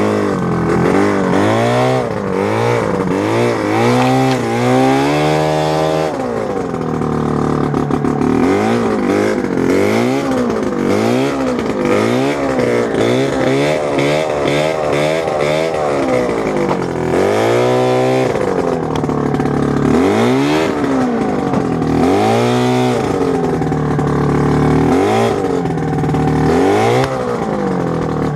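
Ski-Doo snowmobile's Rotax 503 two-stroke twin engine revving up and dropping back over and over, the pitch rising and falling every second or two, as the sled is forced through dense brush.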